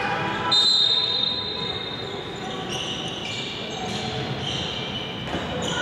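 Handball game on a wooden sports-hall floor: players' shoes squeaking and the ball bouncing, with the sound echoing in the hall. A loud high squeal comes about half a second in, and shorter squeals come after it.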